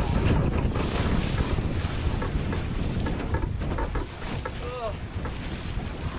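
Strong wind buffeting the microphone over water rushing and slapping against the hull of a small flat-bottomed sailing skiff in short chop. About three-quarters of the way through there is a brief pitched squeak.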